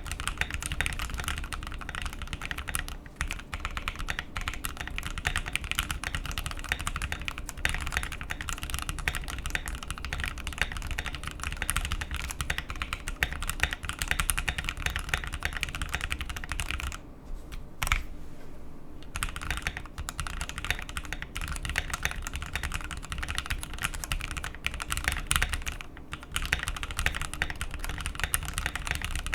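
Fast continuous typing on a Keychron Q1 mechanical keyboard fitted with lubed Gateron Oil King linear switches, a dense stream of keystrokes with a short pause about two-thirds of the way through.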